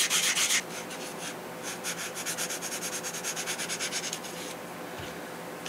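80-grit sandpaper rubbed over a block of soft balsa held in the hands, in quick back-and-forth strokes: hard for the first half second, then lighter, stopping about four and a half seconds in. The block is being taken down about an eighth of an inch to shape a wing fillet.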